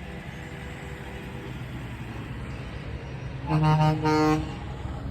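Semi truck air horn blasting twice about three and a half seconds in, a long blast then a shorter one, over a steady low rumble of truck engines.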